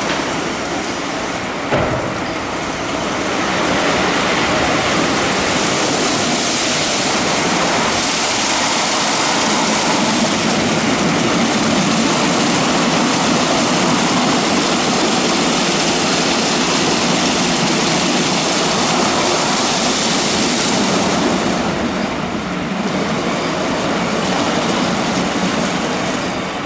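WashTec EasyWash rollover car wash running: its rotating brushes and water spray make a steady rushing noise, with one sharp knock about two seconds in.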